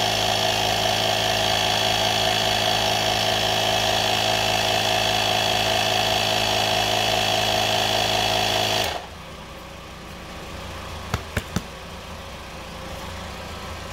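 AstroAI A220B 12 V portable air compressor running steadily while inflating a soccer ball, then cutting off suddenly about nine seconds in as it reaches its preset pressure. Three quick clicks follow a couple of seconds later.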